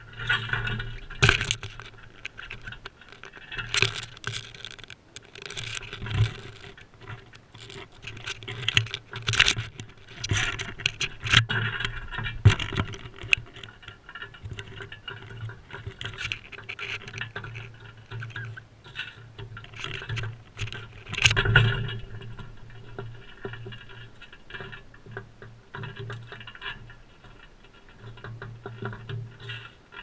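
Crimson rosellas feeding on a seed tray close to the microphone: irregular clicks, scrapes and scratches of beaks working seed and of feet and husks on the tray's surface, with several louder knocks.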